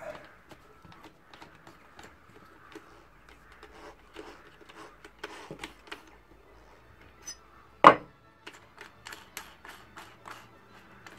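The keyless chuck of a cordless drill being gripped and twisted by hand to loosen a wood drill bit that is jammed in it: scattered clicks and taps, one sharp knock about eight seconds in, and a run of quick clicks near the end.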